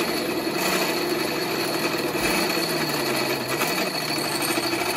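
A drill press running steadily, its bit cutting a hole through a square metal tube and throwing off metal chips.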